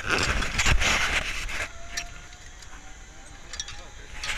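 Metal zip-line hardware clinking and rattling as the trolley and carabiners are clipped onto the steel cable, loudest in the first second and a half. A faint, thin whine then rises slowly in pitch.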